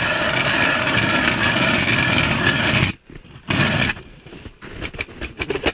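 Hand ice auger drilling through lake ice: a steady grinding for about three seconds that stops abruptly, a short second burst, then scattered scrapes and knocks.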